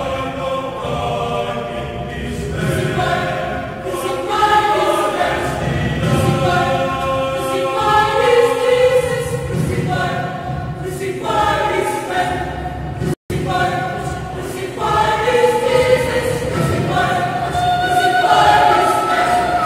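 Mixed choir of men's and women's voices singing together. The sound cuts out for an instant about thirteen seconds in.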